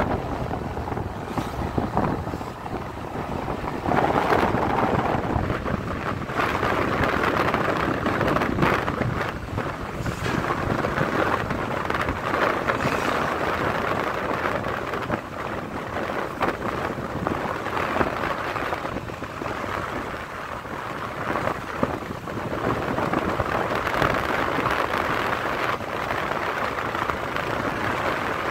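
Wind rushing over the microphone of a moving vehicle, gusting louder and softer every few seconds, over a steady rumble of road and vehicle noise.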